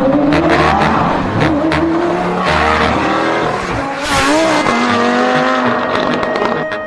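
Background music with rising and falling sliding tones running through it.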